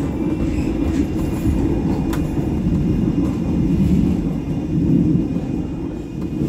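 Manchester Metrolink M5000 tram running along the line, heard from inside the passenger car: a steady low rumble of wheels on rails, with a faint click about two seconds in.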